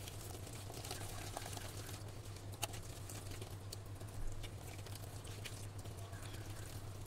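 A hand squishing and stirring wet spice paste in a stainless steel bowl: irregular soft wet clicks and squelches, with a sharper click about two and a half seconds in. A steady low hum runs underneath.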